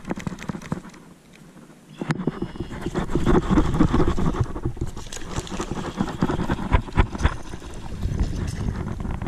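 Baitcasting reel being cranked, a rapid gritty ticking and whirring of its gears that starts about two seconds in.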